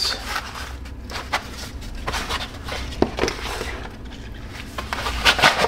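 Handling noise from unpacking on a workbench: paper and packaging rustling and knocking, with a few sharp clicks near the end, over a low steady hum.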